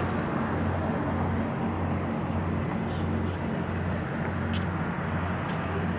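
Steady wind noise buffeting the microphone: a low rumble under an even hiss.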